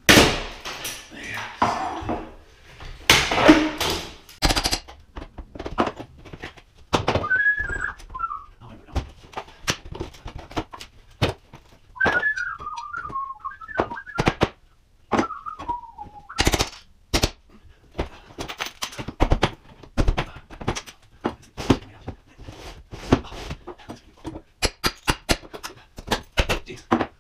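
Hammer and pry bar striking and prying at an old wooden window frame and trim, a long run of sharp knocks and cracks, heaviest in the first few seconds. A wavering whistle comes and goes in the middle.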